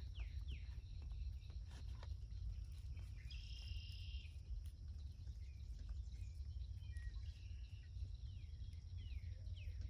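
Outdoor garden ambience: a bird calls in runs of quick down-slurred chirps near the start and again near the end, over a steady low rumble and a faint steady high-pitched whine.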